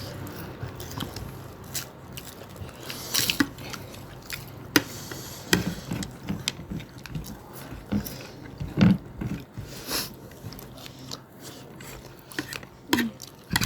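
People eating at close range: chewing and biting, with scattered short clicks and taps.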